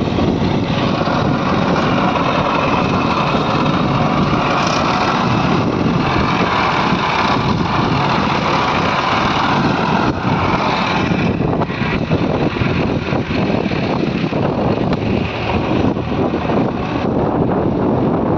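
Diesel engines of earthmoving machinery running steadily under load, with the sound shifting about ten seconds in and again near the end.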